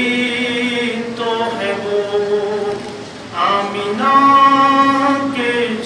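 Unaccompanied singing of an Urdu devotional poem: a single voice drawing out long held notes, with a short pause about three seconds in before the next, louder phrase.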